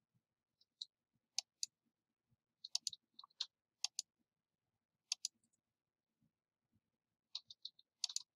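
Computer mouse clicks: about a dozen short, sharp clicks at irregular intervals, several coming in quick pairs, as menu items and options are selected.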